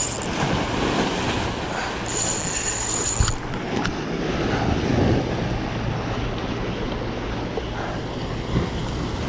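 Wind buffeting the microphone and sea waves washing against breakwater rocks. About two seconds in comes a high, even whir lasting just over a second.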